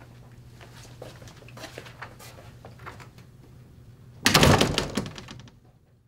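Footsteps on a hard hallway floor over a low steady hum, then a sudden loud noise about four seconds in that dies away over about a second.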